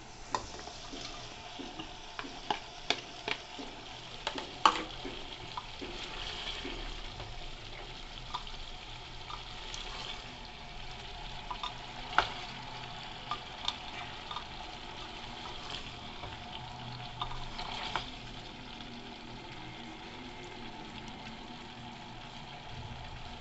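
Mutton and vegetables frying in an aluminium pressure cooker as cut onions are tipped in and stirred with a wooden spatula: a steady sizzle broken by sharp knocks and scrapes of the spatula against the pot, the loudest about five, twelve and eighteen seconds in.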